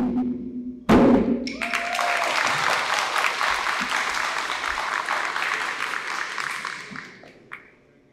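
Djembe drumming ends on one loud final stroke about a second in, followed by audience applause for about six seconds that dies away near the end.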